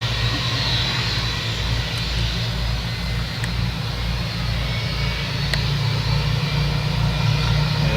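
Airbus A320-232's IAE V2500 turbofan engines running with a steady low hum and faint whine, before the takeoff roll begins.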